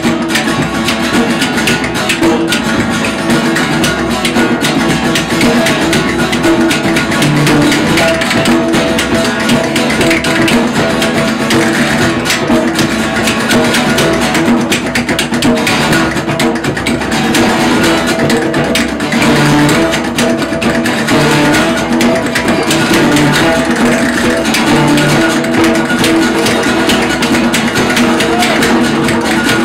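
Live acoustic guitar playing an instrumental blues-rock passage, with a hand-held egg shaker shaken in rhythm alongside it.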